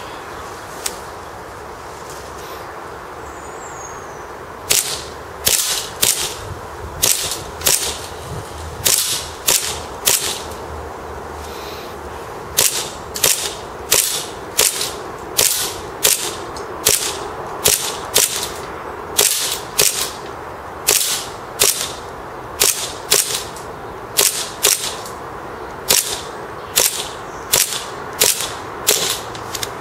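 Tokyo Marui MEU 1911 gas blowback airsoft pistol, with a metal slide and frame kit, firing shot after shot on propane from an extended magazine. Each shot is a sharp crack with the slide cycling, at about one a second, starting about five seconds in with a brief pause near the middle. Gun and magazines are cold, yet the pistol keeps cycling on every shot.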